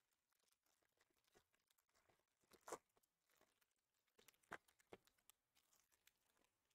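Faint crinkling and tearing of a foil trading-card pack wrapper being torn open by hand, with a few sharper crackles about midway and again past four seconds.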